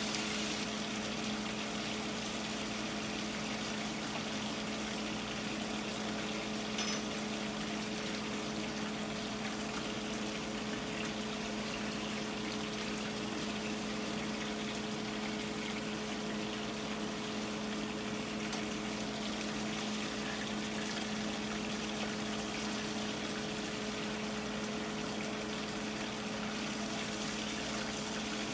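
Fish fillets frying in hot butter and oil in a skillet, a steady sizzle with a low hum underneath. Metal tongs click lightly twice.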